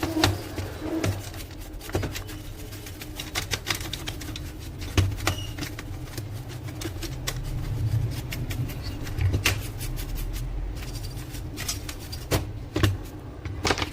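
Irregular clicks and light knocks from plastic parts of an opened HP LaserJet M1005 laser printer being handled and cleaned, over a steady low hum.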